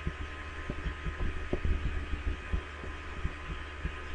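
Steady low electrical hum with a few faint steady higher tones, broken by irregular soft low thumps every fraction of a second.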